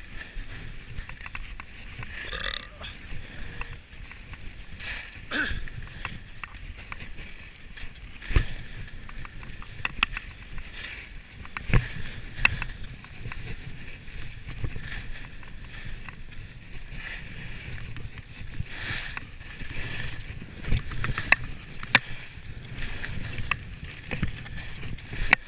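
Skis sliding and scraping over snow through a run of turns: a continuous hiss broken by irregular sharp clacks and knocks from the skis chattering over the snow.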